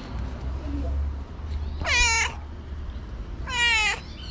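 Tabby cat meowing twice, each meow about half a second long, the two a second and a half apart.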